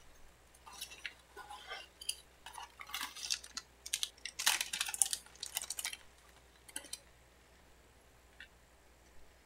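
Parts of a resin model kit and their packaging being handled while it is unboxed: a run of small clicks, taps and rustles, busiest and loudest about halfway through, then two faint ticks near the end.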